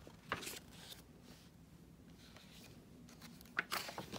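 Pages of a hardcover picture book being turned by hand: a short papery swish just after the start and a louder one near the end, with faint paper rustling between.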